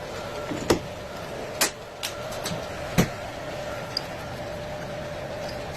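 Metal lathe running with a steady faint hum, with a few sharp knocks from work at the machine, the loudest about three seconds in.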